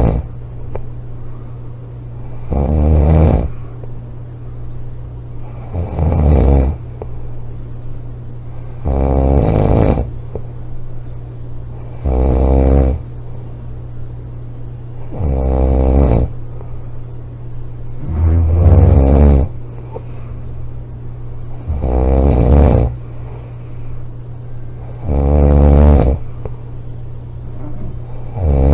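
A person snoring loudly and rhythmically, one snore about a second long every three seconds or so, with quieter breathing between snores. A steady low hum runs underneath.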